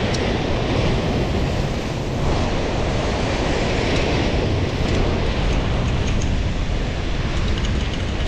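Wind buffeting the microphone with a steady low rumble, over surf washing against the shore.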